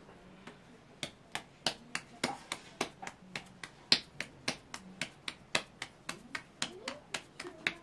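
A ball of dough slapped and patted between floured palms to flatten it into a round: quick sharp slaps, about three a second, starting about a second in.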